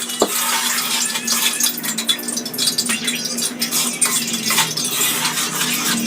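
Kitchen utensils clinking and scraping against pots and dishes in a quick, irregular run of small strokes, over a steady low hum.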